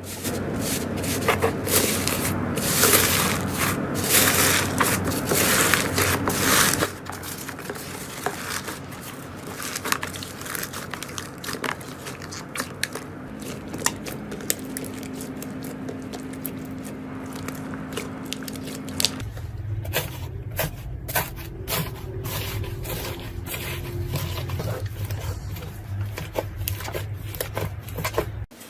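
Slime being squeezed, stretched and poked by hand, with a constant crackle of small clicks and pops. The character of the sound changes abruptly twice as different batches of slime are handled.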